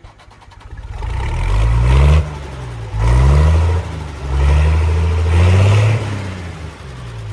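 A large engine revving up and dropping back three times, with a low, heavy sound.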